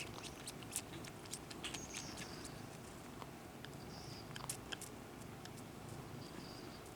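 Kittens nursing from a mother cat: irregular wet clicking and smacking suckling sounds, with a few faint high squeaks.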